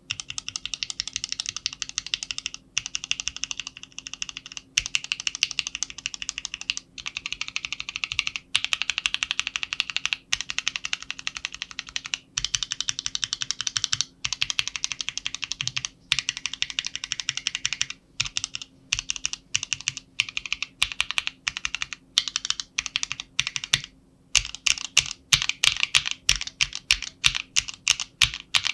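Keys of a YMDK macropad with lubed mechanical switches, modded with double-sided EVA tape between plate and PCB, being pressed in fast rolling runs: a dense stream of keystrokes broken by short pauses. In the last few seconds the presses turn slower, separate and louder.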